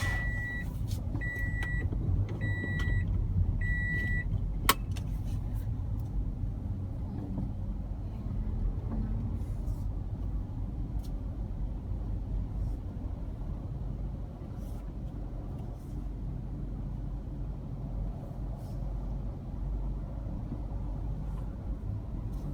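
Steady low rumble of a car running, heard from inside the cabin. In the first few seconds a dashboard warning chime beeps four times about a second apart, followed by a single sharp click.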